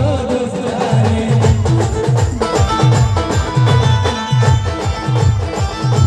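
Indian folk band dance music, played loud: a quick, even run of deep drum hits, each falling in pitch, under a held melody line.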